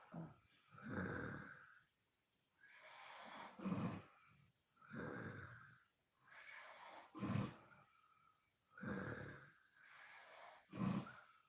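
A woman snoring in her sleep: three short, loud snores, about three and a half seconds apart, each set among longer, breathy breaths.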